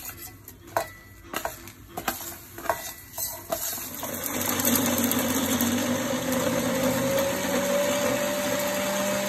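A steel spoon scrapes and clinks on a steel plate as whole spices and garlic cloves are tipped into a steel mixer-grinder jar. About four seconds in, the electric mixer grinder starts and runs steadily, grinding them into a paste, its hum rising slightly in pitch.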